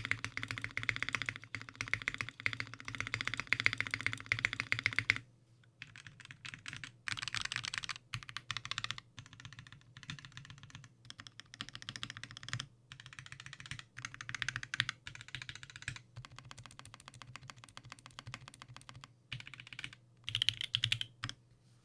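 Rapid, dense clicking in runs: continuous for about the first five seconds, then shorter runs broken by brief pauses, over a faint steady low hum.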